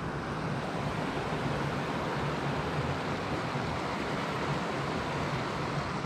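Steady rushing of a rocky mountain stream, mixed with wind buffeting the microphone in a flickering low rumble.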